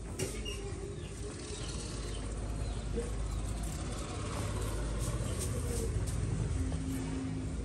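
A steady low rumble like a running engine, building about two seconds in and strongest toward the end.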